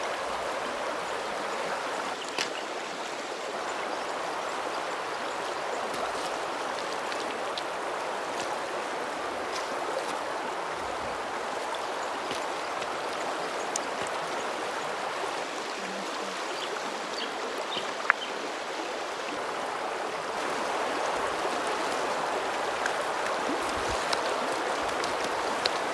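River water running over shallow rocks: a steady rushing babble of white water, with a few faint clicks on top.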